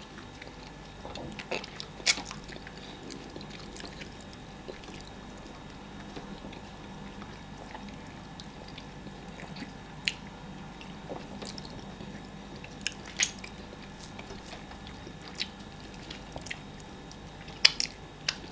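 Quiet mouth sounds of eating fufu and egusi soup: soft chewing and squishing, with a few sharp clicks scattered through.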